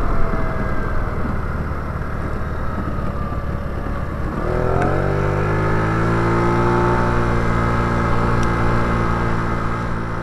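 Small single-cylinder engine of a motorized bike running on the move. About four seconds in it speeds up, its pitch rising, then holds a steady higher speed.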